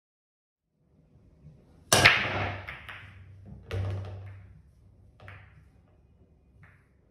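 Pool break shot about two seconds in: a sharp crack as the cue ball hits the racked red and yellow 8-ball balls, which scatter, knocking together as they go. A second loud knock comes under two seconds later, then a few fainter clicks of balls striking each other and the cushions.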